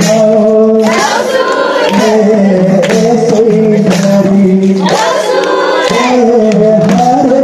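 Music with a group of voices singing a melody together, holding notes about a second at a time.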